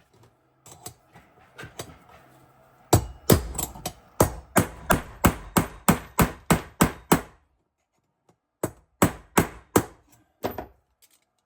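Hammer blows driving the old bearing seat out of a small wagon wheel's hub: a few scattered strikes, then a quick run of about three blows a second, a pause, and a handful more. The seat is stubborn and is not coming out yet.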